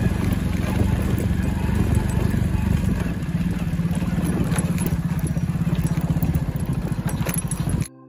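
Motorcycle engine running with a steady pulsing note while riding over a bumpy dirt road, with clatter and rattling from the bumps. It cuts off abruptly at the very end as soft ambient music begins.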